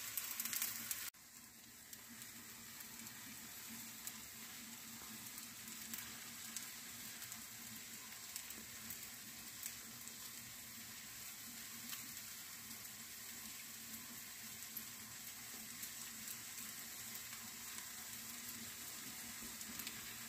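Eggs and slices of sucuk sausage frying in a non-stick pan: a steady sizzle with fine crackling. It is louder for about the first second, then drops suddenly to a quieter, even sizzle.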